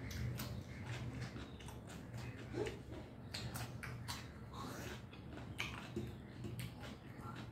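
Close-up mouth sounds of a person eating with the hands: wet chewing and lip smacking, with many short clicks and smacks.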